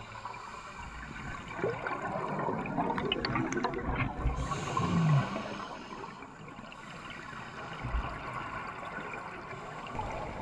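Underwater sound of scuba divers breathing through regulators: exhaled bubbles rushing and crackling, with scattered clicks. A short falling low tone comes about five seconds in.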